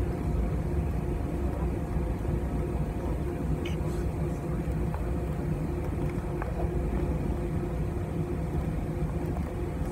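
Airbus A320 cabin noise while taxiing: the engines' steady low hum at taxi power, with a faint steady whine over it.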